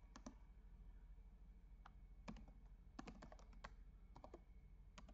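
Faint keystrokes on a computer keyboard: sharp clicks typed in short, irregular runs of one to five with pauses between.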